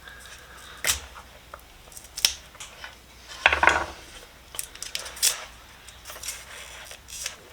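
Pocket knife blade scraping and cutting at packing tape wrapped around a tool, heard as scattered short scrapes and clicks with a longer scrape about three and a half seconds in.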